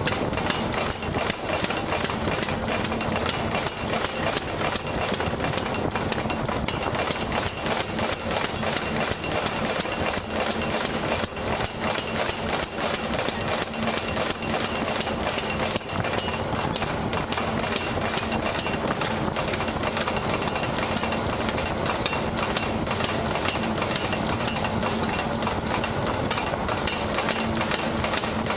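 Rapid, continuous mechanical hammering, many blows a second without a break, over a steady machine hum: a blacksmith's power hammer running.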